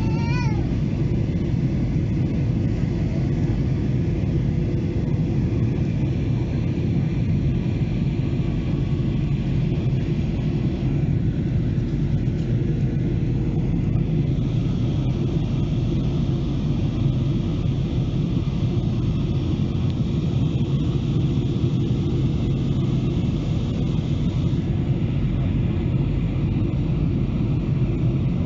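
Steady cabin noise of a Boeing 737-800 in flight, heard from a window seat beside the wing: the CFM56-7B engines and the rush of air make a low, even rumble.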